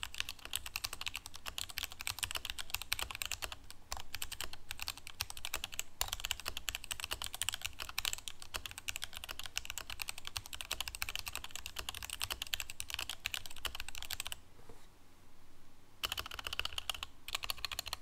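Fast typing on an RK61 mechanical keyboard with Gateron Yellow linear switches: a dense, continuous clatter of keystrokes. About three-quarters of the way through the typing stops for a second or so, then resumes.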